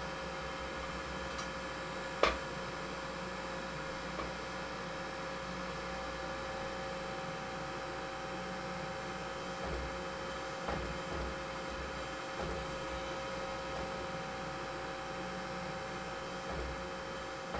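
Steady electric hum of shop machinery, with one sharp knock about two seconds in and a few faint knocks later.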